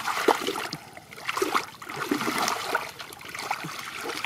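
Hands groping and sloshing through shallow muddy water and silt, making irregular splashes, squelches and gurgles.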